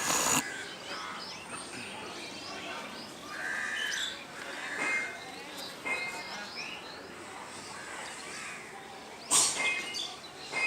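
Birds chirping and calling over a steady outdoor background, with two sharp knocks: one at the start and a louder one about nine seconds in.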